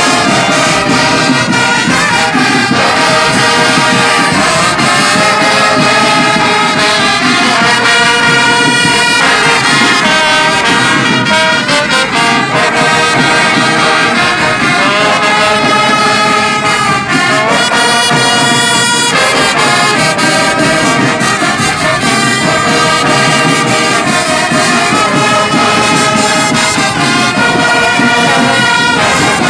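Large brass band of trumpets, trombones and bigger brass horns playing a tune together in full chords, the notes changing every second or two.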